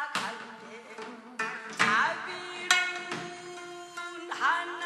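Instrumental music, a melody of sharply struck notes about every second, between the sung verses of a Korean gospel song.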